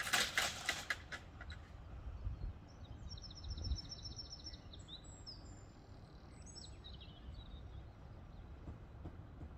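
1970s Mk.1 GWE drive-down level-crossing barrier booms clattering against the ground as they settle in the first second. Then birds chirping over a low steady background rumble from about three seconds in.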